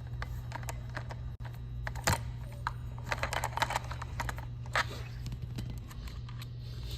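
Scattered light clicks and taps of a tool and small metal parts being handled while the cassette's lock nuts and washers come off a bicycle hub motor. A steady low hum sits underneath, with sharper knocks about two and five seconds in.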